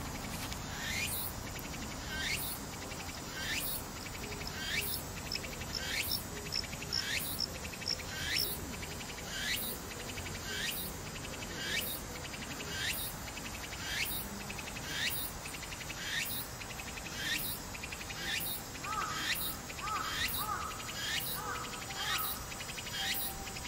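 Insect calling steadily outdoors: a fine pulsing buzz with a downward-sweeping phrase repeated about every 1.2 seconds. A few faint bird chirps come in near the end.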